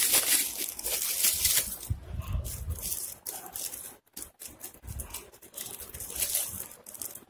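Metallic foil wrapping crinkling and crackling as it is pulled open by hand, in repeated bursts with short pauses.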